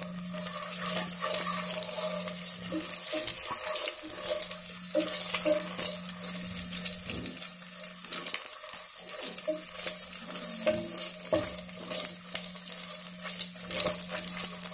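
Whole boiled eggs sizzling in hot oil in a nonstick kadai, rolled about with a spatula that scrapes and knocks against the pan. A steady low hum runs underneath.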